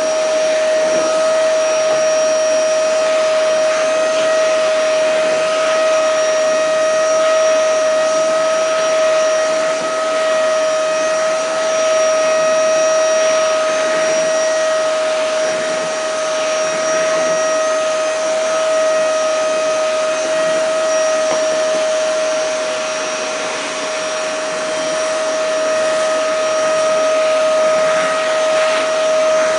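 Vacuum cleaner running steadily, its motor giving a constant high whine over a rushing noise.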